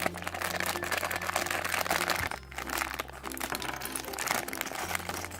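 Thin plastic parts bags crinkling and rustling as they are torn open and handled, with a short pause about halfway through, over quiet background music.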